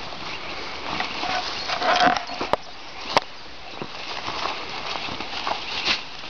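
Dogs scrabbling and rustling through dry grass and brush as they search a hole for a mouse, an uneven crackling patter, with two sharp clicks a little after two and three seconds in.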